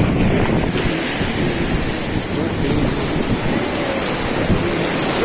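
Rushing whitewater of a river rapid around a raft, with wind buffeting the microphone; faint shouts of the rafters in the middle.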